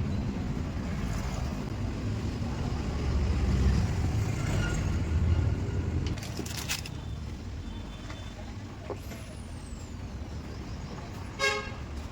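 Royal Enfield Shotgun 650 parallel-twin engine running, with the tappet noise that the title calls the problem. It runs louder for a couple of seconds in the middle and quieter after that. A short pitched tone sounds near the end.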